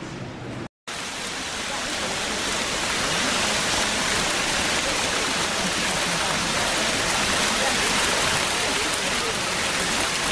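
Steady rushing and splashing of water from a garden fountain's cascade and arching water jets. It starts after a short break about a second in and swells over the next couple of seconds.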